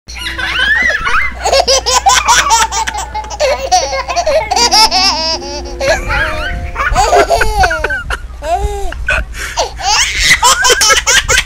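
High-pitched laughter, hard and continuous, in quick repeated peals.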